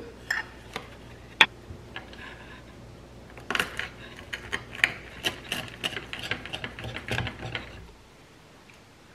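Hand-twisted spice grinder for red chili flakes: a few single clicks, then a run of quick ratcheting clicks lasting about four seconds.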